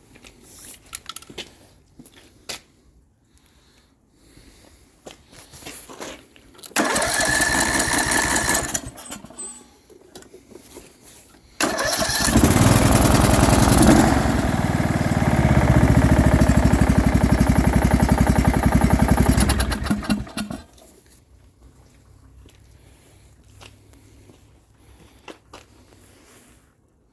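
Craftsman mower's small engine turned over for about two seconds without catching, then turned over again and fires, running loud with a fast, even pulse for about eight seconds before it is shut off and dies away. The engine makes a noise that the owner suspects may be a knock.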